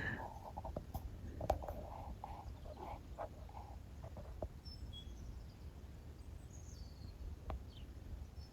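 Quiet outdoor ambience: a steady low rumble, a few faint clicks and short faint sounds in the first few seconds, and a few brief, faint high bird chirps in the second half.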